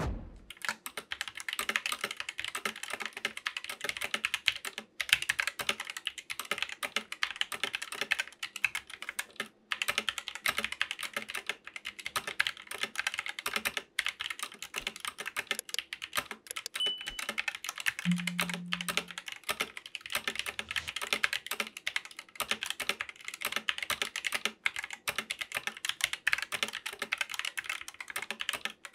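Typing on a GK61 60% mechanical keyboard fitted with stock, unlubed Gateron optical yellow linear switches: a fast, continuous clatter of keystrokes with a few short pauses.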